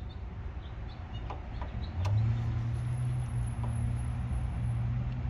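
A steady low engine hum that gets louder and firmer about two seconds in, with a faint high whine in the middle.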